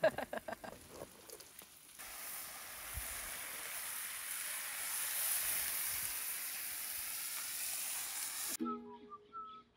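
Bacon sizzling on a 17-inch Blackstone flat-top griddle: a steady hiss that starts about two seconds in and cuts off suddenly near the end.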